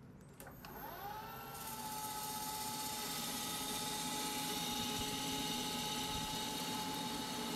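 Metal lathe spindle spinning up over the first second and a half, then running with a steady whine while a parting tool partially cuts off the turned ball-shaped button.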